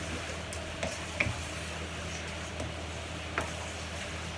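Wooden spatula stirring and tossing rice noodles in a hot frying pan: the noodles sizzle steadily while the spatula knocks sharply against the pan a few times, loudest about a second in and again after three seconds. A steady low hum runs underneath.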